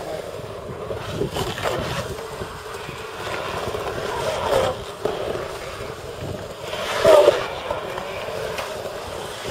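Skateboard wheels rolling and carving on the concrete walls of a pool bowl, a steady rolling roar that swells louder about four and a half seconds in and again around seven seconds.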